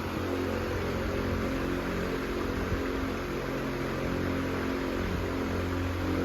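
Vintage Freshnd Aire 26-inch table fan running steadily on its second speed: a rush of moving air over a steady motor hum.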